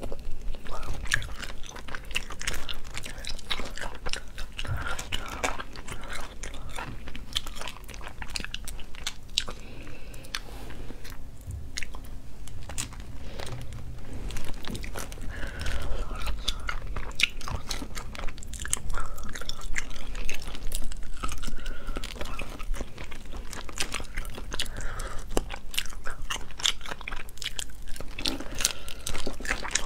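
Cooked shellfish being eaten by hand: shells cracking and snapping as they are pulled apart and bitten, with chewing in between.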